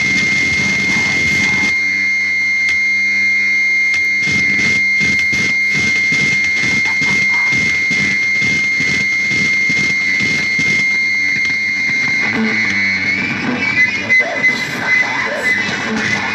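Experimental noise music: a steady high-pitched whine held throughout over fast rhythmic pulsing. Near the end the whine wavers and louder irregular squeals break in.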